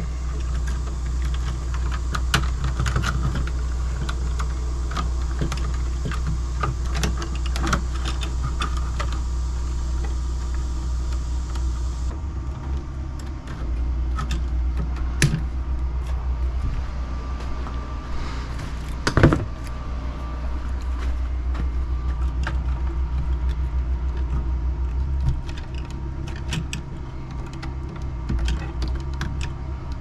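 Small metallic clicks and rattles of copper electrical wires and wire strippers being handled, over a steady low rumble, with one louder knock about nineteen seconds in.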